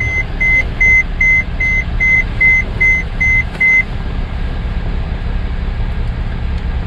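Mercedes Sprinter van's electronic warning chime beeping rapidly, about two and a half beeps a second, stopping about four seconds in, over the low, steady rumble of the engine idling.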